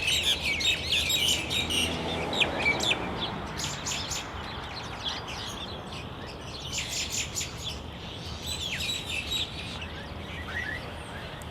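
Many small birds chirping and twittering, densest in the first few seconds and thinning out after, over the steady hiss of a flowing creek.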